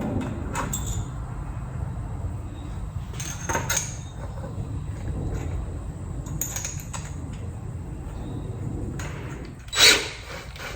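Scattered knocks and clicks of parts being handled and taken off a wooden chair in a workshop, over a low steady rumble; the loudest knock comes near the end.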